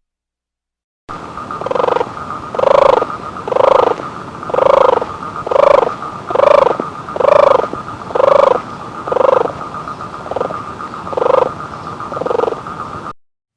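An animal calling: a short pitched call repeated about once a second, roughly a dozen times, over a steady high hum. It starts about a second in and cuts off abruptly near the end.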